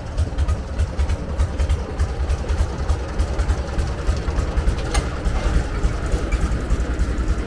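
An engine idling with a steady, fast low throb. A brief click sounds about five seconds in.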